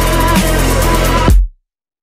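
Electronic background music with a deep bass and regular drum hits, no vocals. It cuts off abruptly about one and a half seconds in to dead silence.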